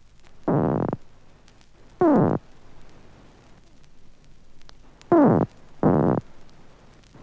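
Electric catfish (Malapterurus electricus) discharges made audible through an amplifier: four short buzzing bursts, two of them falling in pitch. These are the discharges it emits on its night hunt to flush prey from cover. Faint hiss with a few clicks runs underneath.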